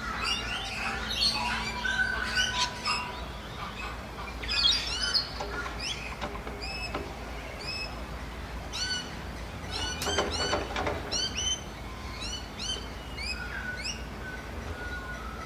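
Many small birds chirping, with a steady run of short, quick, high-pitched chirps repeated over and over from several birds at once.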